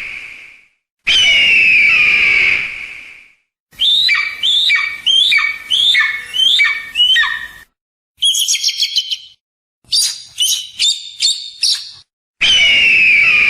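Hawk calls: a long, harsh, descending scream at the start, then a run of about seven shorter down-slurred cries, two bursts of rapid chattering, and another long scream near the end.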